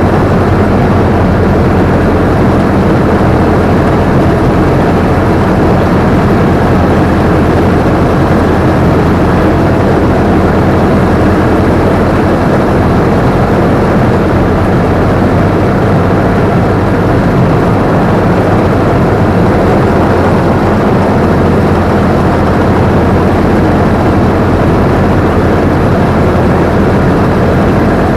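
Combine harvester's engine and harvesting machinery running steadily and loudly, heard from the operator's position, with no change in pace.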